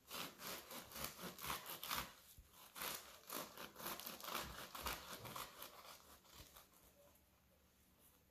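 Serrated bread knife sawing through a soft bread roll with a thin crust: a quick run of faint rasping strokes that dies away about six seconds in.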